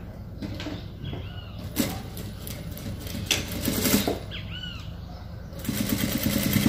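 Fabric being positioned with soft rustles and a few light taps, then about five and a half seconds in an industrial sewing machine starts stitching with a steady rapid rhythm.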